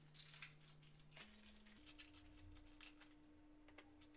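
Faint crinkling and tearing of a GoMacro bar's wrapper being opened by hand, with small clicks and rustles that thin out after about a second. A faint low steady hum runs underneath.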